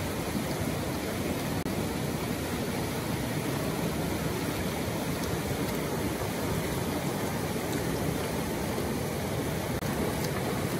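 Steady rushing of a shallow rocky river running over small rapids, with two brief dropouts, about a second and a half in and near the end.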